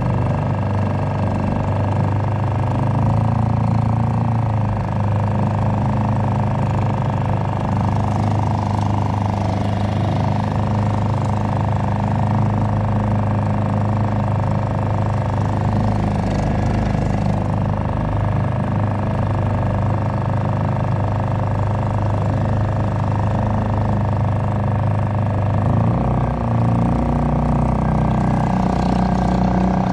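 Suzuki DF2.5 single-cylinder four-stroke portable outboard running steadily, pushing a small boat; the motor is new and in its break-in period. Its note shifts a little near the end.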